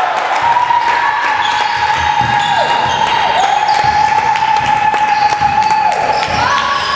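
A basketball bouncing on a wooden gym floor during play, with a steady high tone held throughout that dips in pitch twice.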